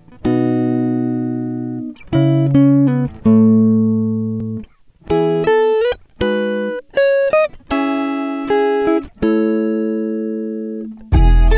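Background music: plucked-string chords, one after another, each ringing out and fading. Near the end a bass line and fuller beat come in.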